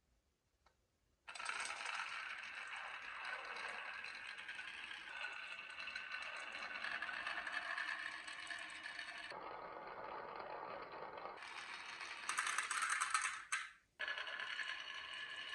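Marbles rolling and clattering along the tracks of a wooden marble run, starting about a second in. The rattle changes abruptly several times and drops out briefly near the end.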